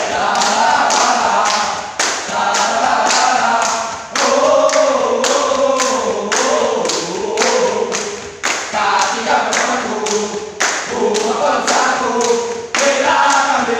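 A group of men singing a yel-yel team cheer in unison, with sharp hand claps keeping a steady beat under the singing.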